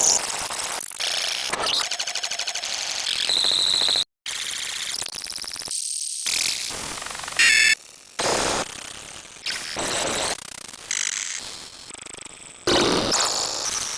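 A rapid montage of unrelated sound effects, each lasting about a second and cutting abruptly to the next. Several are fast rattling bursts, and there is a brief dropout about four seconds in.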